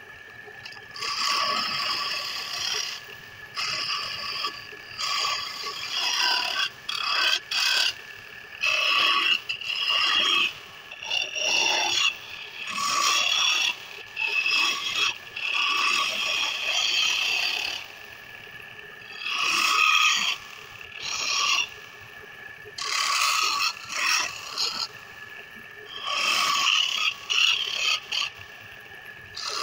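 A wooden spindle spinning on a lathe, with repeated rasping strokes of one to two seconds as a tool or abrasive held in the hand is pressed against the turning wood. A steady thin high whine runs underneath.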